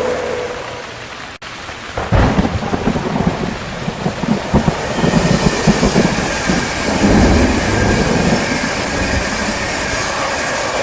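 Rain falling steadily with thunder: about two seconds in, a low rolling rumble with irregular cracks breaks in and keeps going, heaviest through the middle.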